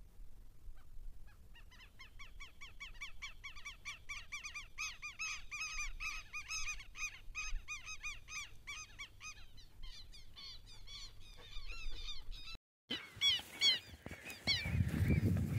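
Birds calling over and over in quick, arched, honking notes, several a second. The calls break off briefly near the end, then resume over a low rumble on the microphone.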